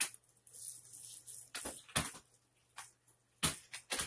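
Thick gravy squelching as hands rub and squeeze it into wet hair: an irregular string of short wet squishes and smacks, sounding like someone taking a dump.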